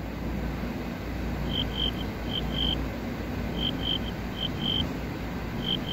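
Insect chirping: short high chirps in pairs and small groups, starting about a second and a half in, over a steady low hum.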